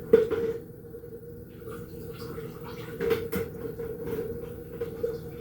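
Water being drawn from a water dispenser into a cup: a sharp knock at the start, then light clicks and a faint trickle, with a couple of sharper knocks about three seconds in, over a steady hum.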